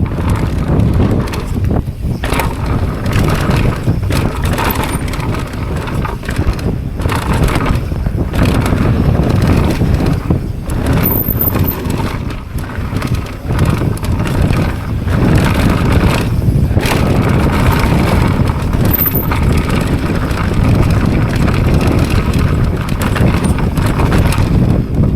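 Mountain bike descending a rough downhill trail at speed: a steady rush of wind on the microphone, tyres on dirt and rock, and the bike clattering over bumps.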